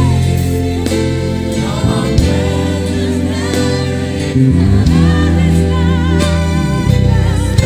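Gospel worship music: a choir singing held, wavering lines over a steady band with a sustained bass.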